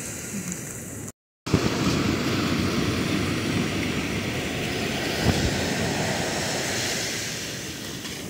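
Ocean surf breaking and foam washing around, with wind rumbling on the microphone. The sound cuts out briefly about a second in.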